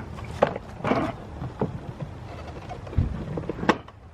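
A Toro Super Recycler push mower being tipped onto its side to drain its oil: a series of knocks and clunks as it is handled, with a duller thud about three seconds in.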